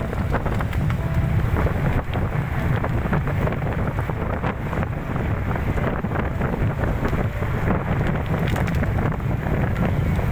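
Wind buffeting the microphone of a phone held out of a moving car, over a steady low rumble of the car on a dirt road.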